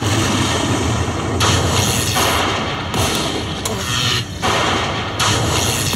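Slot machine playing a loud rumbling, explosion-like sound effect that cuts in suddenly and comes in several surges.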